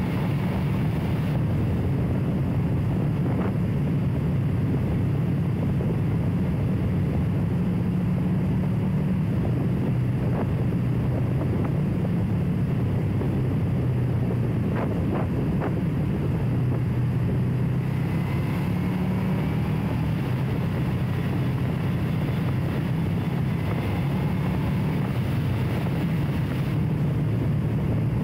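Motorcycle engine running steadily while riding, with wind noise buffeting the microphone.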